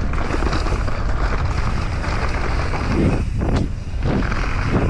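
Wind buffeting the helmet camera's microphone and knobby tyres rolling on a dirt trail as a mountain bike rides fast downhill, a steady loud rush with some brief knocks and rattles of the bike about three seconds in.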